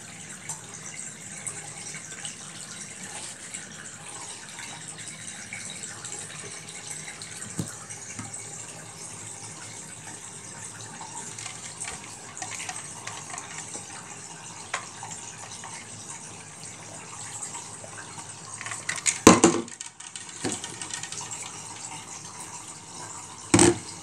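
Wash water draining out of a Zeny portable RV washing machine, a steady running-water hiss, with two loud knocks in the last few seconds.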